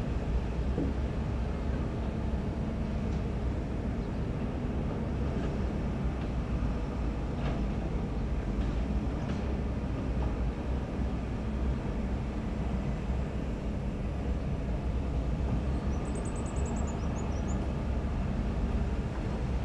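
Heavy diesel construction machinery, an excavator and dump trucks, running steadily as a low, continuous engine rumble, with a few faint knocks now and then. A brief series of high chirps comes near the end.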